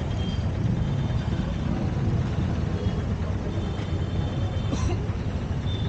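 Honda Africa Twin 1100 motorcycle riding at a steady pace: a continuous low engine rumble under an even rush of wind and road noise.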